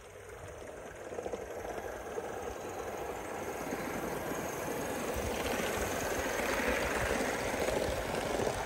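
O gauge live-steam model of a Southern West Country class locomotive running on the track, a dense rapid clatter that grows steadily louder and cuts off suddenly at the end.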